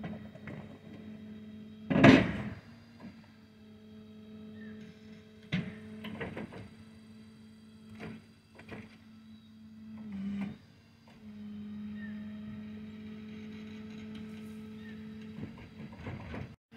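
Steady motor drone of a shed-hauling trailer's hydraulic drive as the shed is slid off its tilted bed. A loud bang comes about two seconds in, and lighter knocks follow. The drone cuts out briefly about ten seconds in, then resumes.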